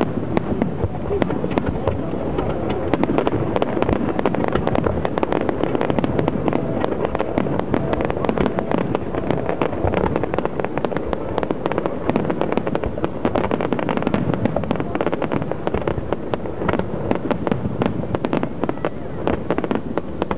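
Aerial fireworks going off in a dense, continuous barrage of bangs and crackles with no pause.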